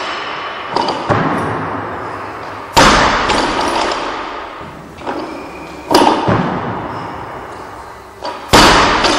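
Loaded barbells with bumper plates dropped onto lifting platforms: three loud crashes about three seconds apart, each followed by a long ringing echo that fades away, with a few lighter clanks of bar and plates in between.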